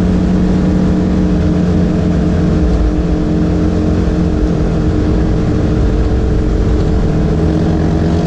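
Polaris General side-by-side's engine running at a steady cruising pitch, heard from on board, with gravel road noise underneath.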